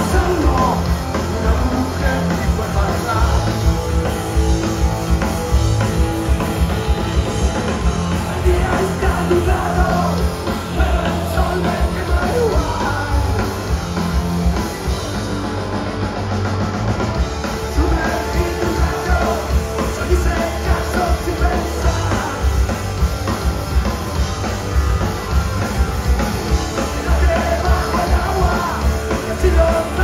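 Live rock band playing a punk rock song: electric guitars, bass guitar and drums, with a man singing into the microphone.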